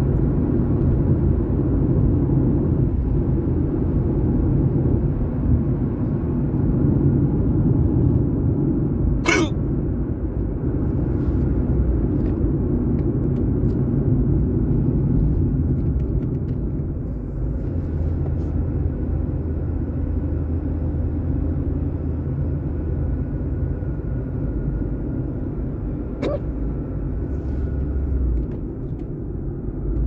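Steady low rumble of a car's cabin on the move, with two sharp hiccups: one about nine seconds in and a fainter one some seventeen seconds later.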